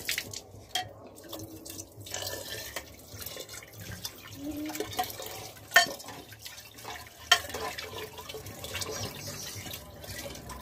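Water pouring from a bottle into an aluminium pot of soup broth while a metal ladle stirs it, with two sharp clinks of the ladle against the pot a little past the middle.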